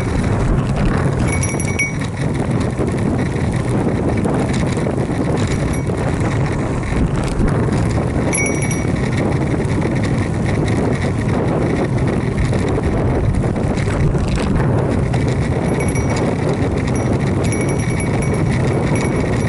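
Steady wind noise on the microphone and tyre and road noise from a road bicycle riding at speed on asphalt.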